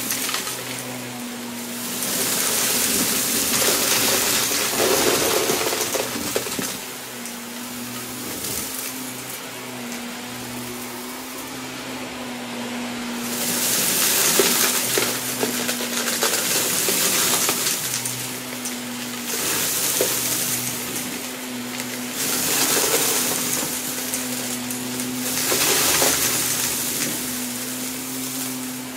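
Shark upright vacuum cleaner running on carpet, its motor giving a steady hum. A rushing, rattling hiss swells several times as the floor head is pushed into the scattered bits of debris, and eases as it pulls back onto bare carpet.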